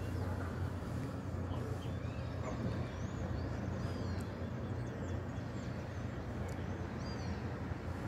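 Early-morning city ambience: a steady low hum of distant traffic, with many small birds chirping in short, scattered calls over it.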